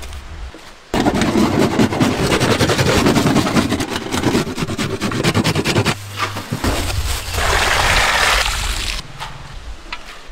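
Dense, rough scraping and rustling of hands working food, starting about a second in and changing character about six seconds in.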